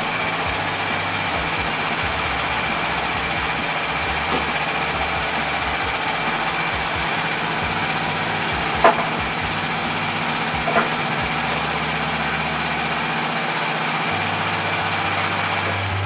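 LogMaster sawmill's engine idling steadily, with a constant whine over a low hum. A few sharp knocks sound over it, the loudest about nine seconds in.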